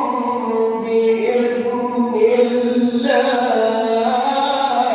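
A man reciting the Quran in the melodic tajweed style, drawing out long held notes that step between pitches. The phrase breaks off near the end.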